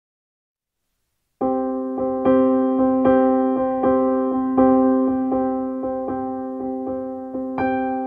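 Background music: a keyboard, piano-like, playing a slow, gentle run of notes struck about every three-quarters of a second, starting abruptly about a second and a half in after silence.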